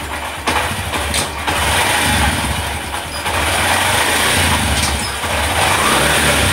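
Honda SP 125's single-cylinder engine running steadily, growing a little louder about a second and a half in, with the drive chain turning. There is no knocking from the chain, which has just been adjusted to cure its 'khat khat' noise.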